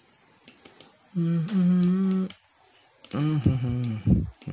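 A man humming to himself in two low, drawn-out stretches. The first is held on a nearly steady pitch; the second wavers. Faint computer mouse clicks come between them.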